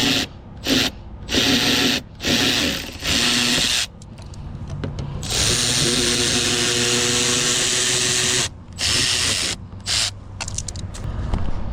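A cordless power tool running in several short bursts, then one longer run of about three seconds, then a few short bursts more, backing out the bolts that hold a fuse box.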